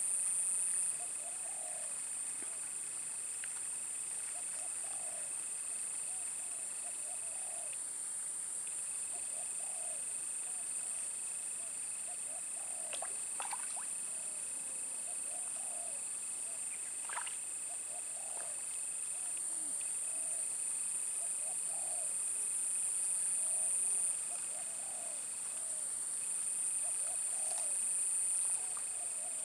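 Ambient insect chorus: a steady high-pitched insect drone with a second, lower steady insect tone that breaks off briefly a few times. Under it, short low animal calls repeat every second or two.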